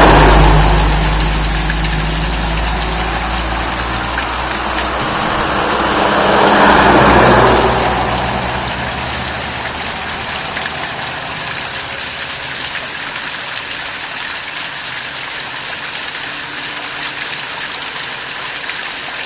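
Road vehicles passing close by: one engine rumble fades over the first few seconds and a second swells and passes about six to seven seconds in. Under them the waterfall keeps up a steady rushing hiss, which is all that remains for the second half.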